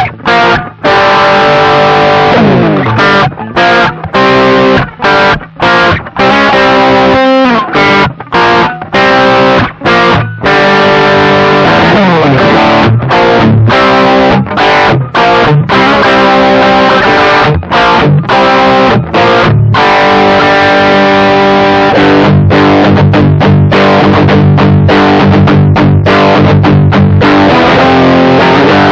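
Electric guitar overdriven through a Caline Orange Burst pedal, a BB Preamp clone, recorded direct through a Joyo California amp simulator. It plays a distorted riff of chords cut off by short, sudden stops, then rings on in sustained chords over the last third.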